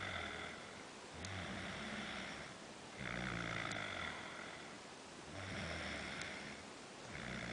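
A sleeping person snoring, one snore about every two seconds, each lasting about a second.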